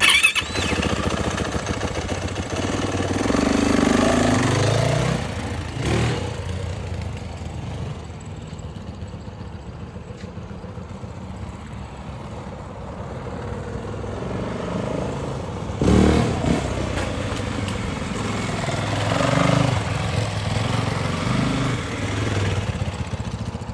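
Yamaha WR450F dirt bike's single-cylinder four-stroke engine running as the bike is ridden, swelling and fading several times under the throttle, with a sharp burst about sixteen seconds in.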